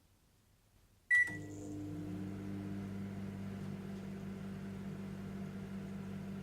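Microwave oven being switched on: one short beep about a second in, then the oven starts and runs with a steady electrical hum.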